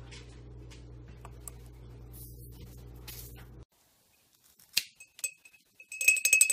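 A low steady hum with light clicks and short hisses while a small glass bottle is handled, then after a sudden cut a sharp snap and, near the end, a quick run of ringing glass clinks as cut-open glow sticks are worked over a glass mason jar.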